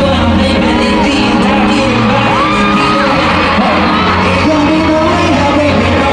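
K-pop song performed live through a hall's sound system: singing over a steady heavy bass.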